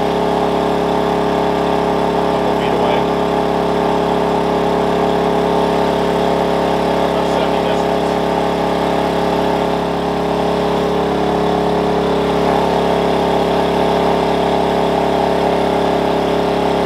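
Wen 56203i 2000-watt inverter generator running steadily under a load of about 1400 watts, its engine holding an even pitch with a slight dip about ten seconds in.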